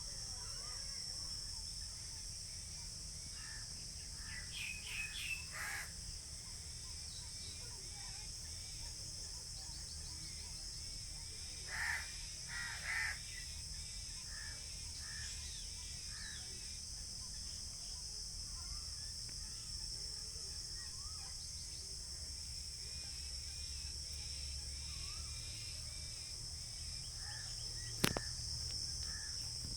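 Rural outdoor ambience: a steady high-pitched insect drone, crows cawing a few times (two louder caws about twelve seconds in), and small birds chirping now and then. A single sharp click near the end.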